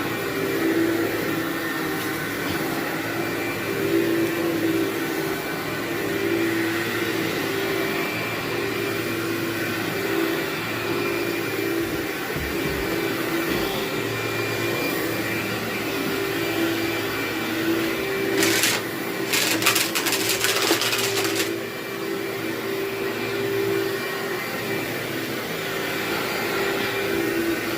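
Vacuum cleaner running steadily on carpet with a humming motor whine, with a burst of crunching crackle about two-thirds of the way through as grit is sucked up.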